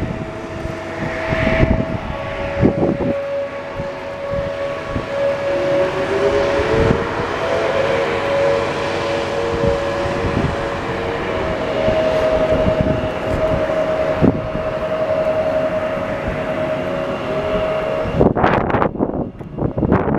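Outdoor tornado warning sirens sounding one 20-second test cycle: several sirens heard together as a steady tone at slightly different pitches, with slow rising glides in places, cutting off about 18 seconds in. Gusts of wind buffet the microphone throughout.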